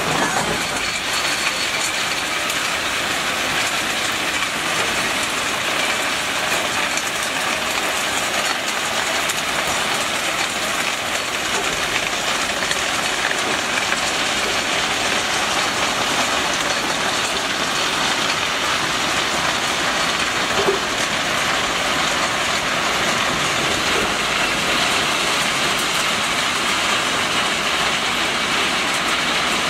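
TsNII-DV3 ballast hopper wagon rolling slowly while discharging crushed-stone ballast onto the track: a steady rushing noise of stone pouring from the hopper chutes over the rumble of the wheels. One brief clank about two-thirds of the way in.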